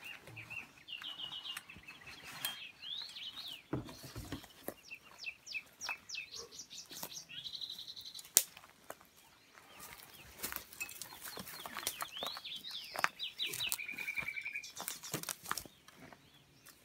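Birds singing and calling: runs of short chirps and sweeping notes, with a steady trill a little after halfway, and scattered clicks, one sharp click about eight seconds in being the loudest sound.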